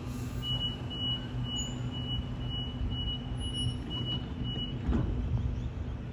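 A single high electronic beep repeating about twice a second, nine times, over the low steady hum of an electric train at the platform, followed by a dull knock about five seconds in.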